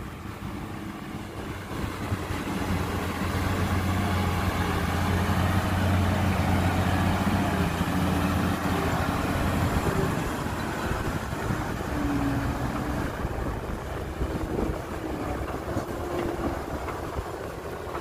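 Loaded diesel dump truck's engine running as the truck drives over a dirt track, a steady low engine note that grows louder as it passes close and quieter after about ten seconds as it moves away.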